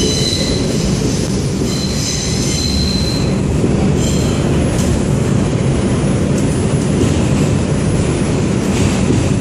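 R142 subway train running through a tunnel, heard from inside the car as a loud, steady rumble. Its wheels squeal in a high tone a few times in the first four seconds or so.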